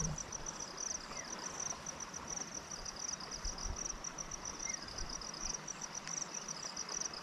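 Crickets chirping in rapid, even pulses, a high trill, with a second chirping at a slightly lower pitch joining about halfway through, over a steady hiss of flowing water.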